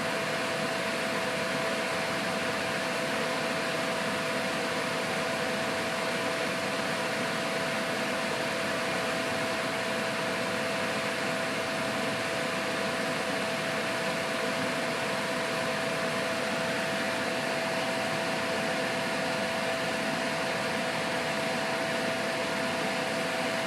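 A fan running steadily: an even whir with a constant hum tone through it.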